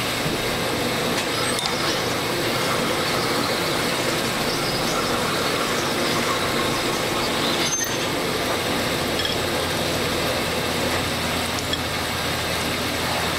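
A machine spindle running steadily under a stream of cutting oil while a new MGB rocker-arm bushing is worked along the spinning mandrel to size it to the new shaft.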